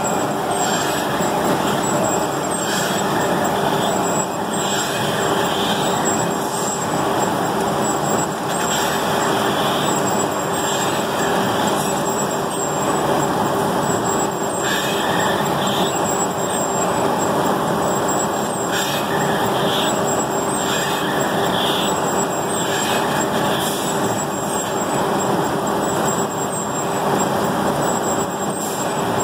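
Industrial machinery running steadily: a continuous mechanical noise with a constant hum underneath.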